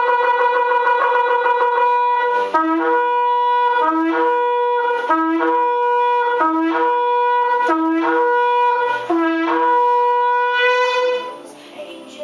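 Shofar blasts: a long held note, then about six short calls that each jump from a lower to a higher pitch, and a final long note that stops about eleven seconds in.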